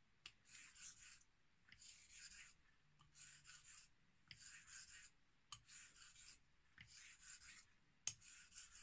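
Straight razor blade drawn across a 1000-grit synthetic whetstone in slow, even strokes, about one a second. Each stroke is a soft, faint scraping hiss with a light tick at its start. This is bevel setting, the first stage of honing.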